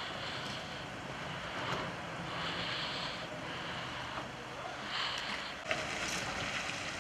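Mercedes van's engine running as it pulls slowly past at close range, over steady outdoor noise, with a short sharp click about six seconds in.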